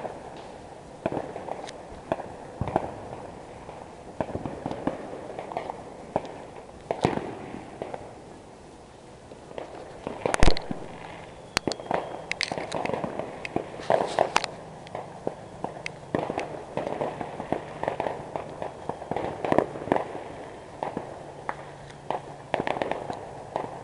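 Fireworks and firecrackers going off, an irregular string of pops and bangs with no let-up. The loudest bang comes about ten seconds in, followed by a quick run of pops.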